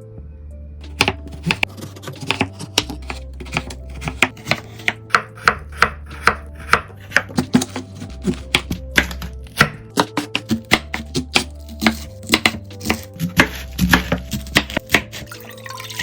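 Knife chopping vegetables on a cutting board: repeated sharp chops, a few a second, in an uneven rhythm.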